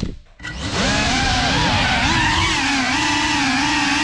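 FPV quadcopter's motors and propellers whining, several pitches together rising and falling with the throttle. Right at the start the throttle is cut and the sound drops away for about half a second, then the motors spool back up.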